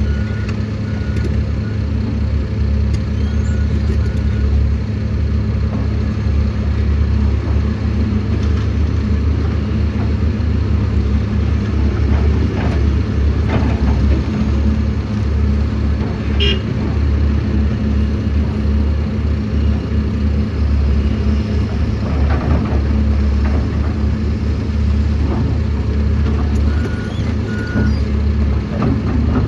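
Heavy diesel engine of an earthmoving excavator running steadily under load, with a few scattered knocks. Short high beeps sound just after the start and again near the end.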